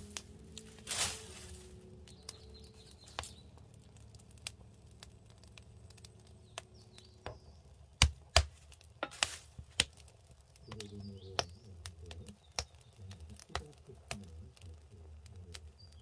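Firewood burning in a firebox, crackling and popping with scattered small snaps. A few loud knocks come around eight to nine seconds in as the burning wood is poked and shifted with a stick. Birds chirp faintly in the background.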